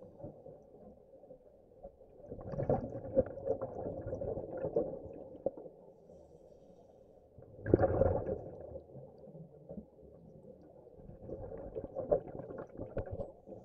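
Scuba diver's regulator exhaust bubbles heard underwater: three bursts of bubbling about four seconds apart, each a breath out, with a faint steady hum between them.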